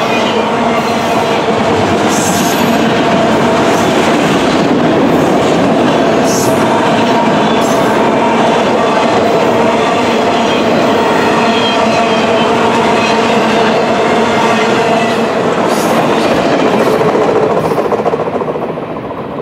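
Freight train cars, tall autorack cars, rolling past on steel wheels: a loud steady rumble with clicking from the wheels over the rail and a steady squealing tone from the wheels. The sound fades near the end as the last car goes by.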